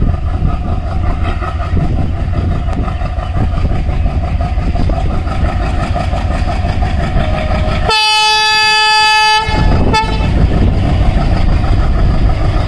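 Diesel locomotive hauling a passenger train, its engine running steadily under power. About eight seconds in, it sounds one horn blast lasting about a second and a half, then a very short toot about a second later.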